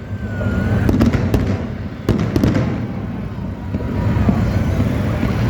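Fireworks display going off: booming bursts over a continuous low rumble, with several sharp cracks, the loudest a little after two seconds in.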